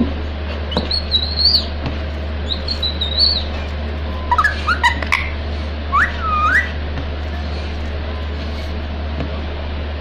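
Rose-ringed parakeet giving two high, held whistles, then a few short calls that swoop up and down, over a steady low hum.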